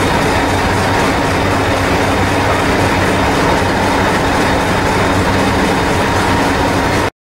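Diesel engine of a Hastings diesel-electric multiple unit (unit 1001) running steadily while the train stands, a constant low drone. The sound cuts off suddenly near the end.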